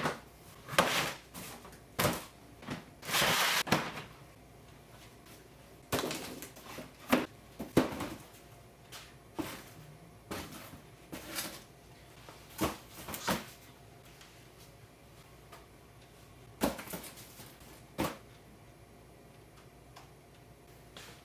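Boxes being knocked over and falling to the floor, recorded as sound effects: a string of separate thuds and clatters, a longer rattling tumble about three seconds in, then sparser knocks with two last ones near the end.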